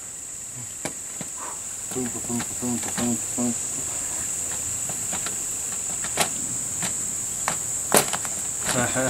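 Steady high-pitched drone of an insect chorus, with low murmured voices about two seconds in and a few faint sharp clicks, two of them near the end.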